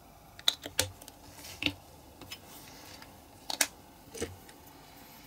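About five light, sharp clicks and taps of small plastic items being handled and set down on a cutting mat.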